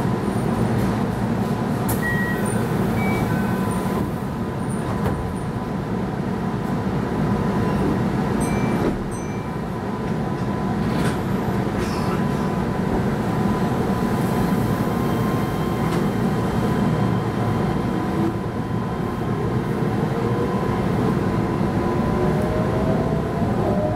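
Keihan 13000 series electric train heard from the cab: a steady hum with a constant high tone while it stands at the platform. From about three-quarters of the way in, the rising whine of the inverter-driven traction motors as it pulls away and accelerates.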